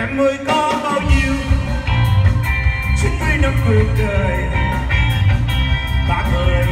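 Live rock-and-roll band with a male lead singer singing into a microphone over electric guitar, bass and drum kit, amplified through a PA. The bass and drums drop out briefly at the start and come back in about a second in.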